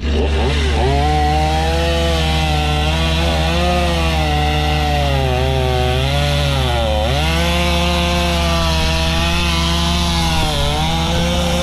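Cat 306 mini excavator's diesel engine and hydraulics working under load, the pitch rising and falling as the load changes, with a sharp dip about seven seconds in.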